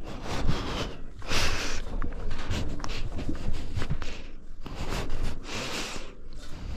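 Footsteps and breathing of a person walking, heard as irregular bursts of hiss and scuffing about once a second over a low rumble.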